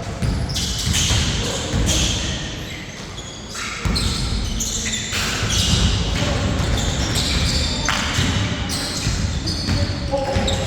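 Basketball being bounced during a half-court game, with irregular thuds of the ball and players' feet on the court and short high-pitched shoe squeaks or calls, ringing in a large hall.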